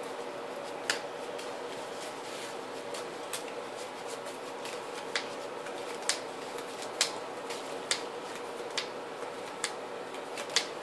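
Sharp, separate taps and clicks of trading cards being handled and set down on the table, at irregular intervals of about one a second. Under them runs a steady room hum with several low tones.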